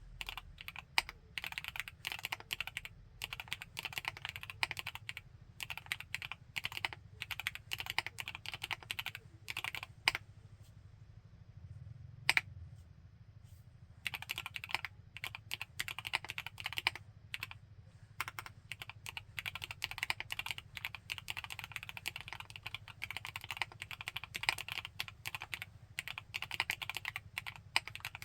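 Typing on a Createkeebs High65 V2 65% CNC-aluminium, gasket-mount custom mechanical keyboard with Gateron CJ linear switches: fast, crisp, high-pitched keystrokes. About ten seconds in, the typing stops for some four seconds, with a single keystroke in the gap, then resumes at the same pace.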